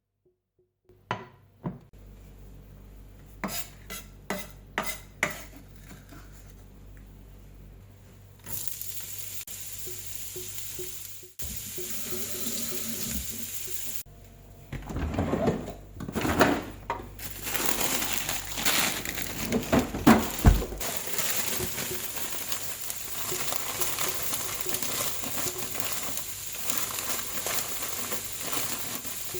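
Several sharp clicks of utensils against dishes, then food starts sizzling in a frying pan about eight seconds in as fried rice is cooked. Louder scraping and tossing come in the middle, and the sizzling carries on steadily after that.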